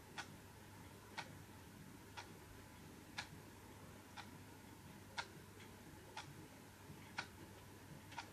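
Clock ticking steadily, about once a second, over a faint low hum.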